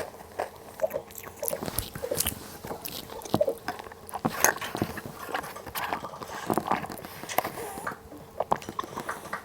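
Close-up crunching and chewing of crunchy cookie-and-cream Pepero biscuit sticks: irregular sharp crackles and clicks from bites and chewing.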